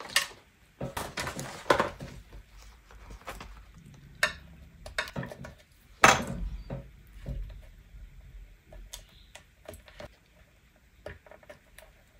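Letter stickers peeled from their sheet and pressed onto card on a cutting mat: paper rustling with scattered small taps and clicks. The loudest is a sharp knock about six seconds in.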